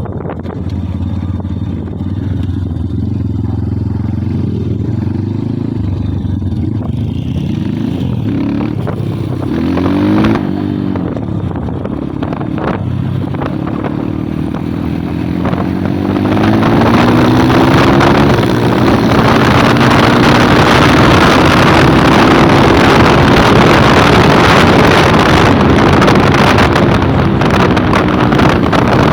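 Kayo 140cc pit bike's single-cylinder four-stroke engine running under way. It revs up and drops back about ten seconds in. From about sixteen seconds it is louder and pulls with slowly rising pitch, with wind rushing over the microphone.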